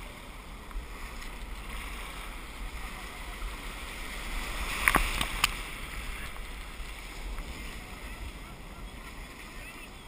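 Foaming surf washing around a kayak's bow as a steady hiss. About five seconds in, a wave surges louder and two sharp knocks come about half a second apart.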